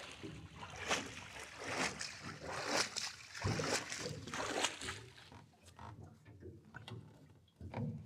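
Water splashing and slapping against the side of a small boat, about once a second, dying down after about five seconds into a few faint clicks and taps.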